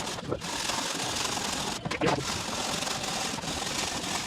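Hand saw cutting through a sawdust-concrete building block in steady strokes, with brief breaks about every second and a half.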